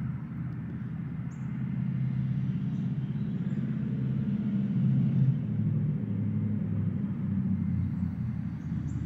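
Low, steady engine rumble that grows louder about halfway through and then eases off.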